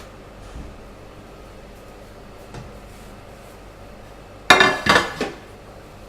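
A person's sudden loud sneeze about four and a half seconds in, trailing off in two smaller bursts.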